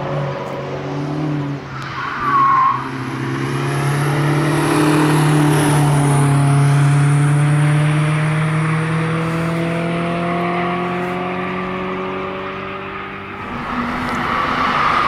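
Cars driven hard on a race track: a brief tyre squeal about two seconds in, then an engine held at high revs, its note rising slowly for several seconds before the sound changes near the end.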